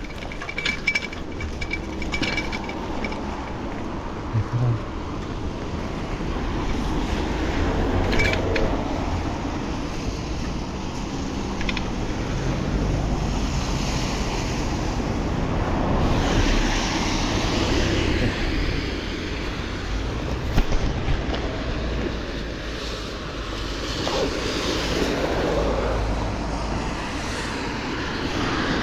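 Wind rumbling on the microphone over a steady wash of road and traffic noise, swelling and easing. A thin high squeal with light clicks sounds in the first few seconds.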